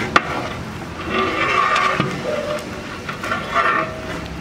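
Long-handled metal ladle scraping against the inside of a large metal pot as a big batch of chicken pieces is stirred over the fire, with a sharp knock a moment in.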